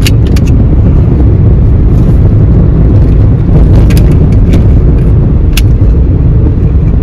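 Renault Kwid driving along, heard from inside the cabin: a loud, steady low rumble of engine and road noise. There are a few short sharp clicks, two at the very start and a few more around four to five and a half seconds in.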